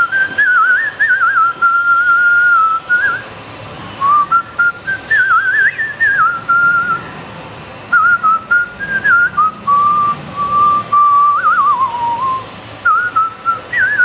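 A man whistling a Tamil film-song melody through pursed lips: a single clear high line of warbling, gliding notes with quick trills, in phrases separated by short breaths.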